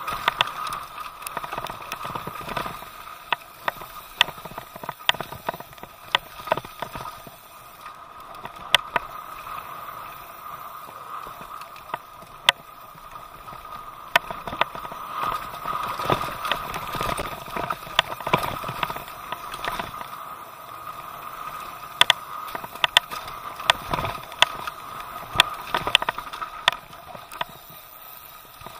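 Mountain bike descending a dirt forest trail at speed: a steady rush of tyre and riding noise, broken by frequent sharp clacks and rattles from the chain and bike over bumps.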